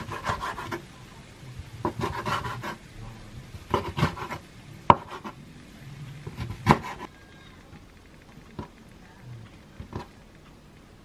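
Chef's knife cutting aged kimchi on a wooden cutting board: clusters of knife knocks against the board, the sharpest about five seconds in. A couple of soft knocks follow near the end as the cut pieces are handled.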